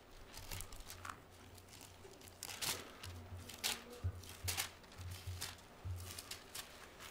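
Paper pages being leafed through: a run of short, faint rustles and crinkles, the loudest a little under three seconds in.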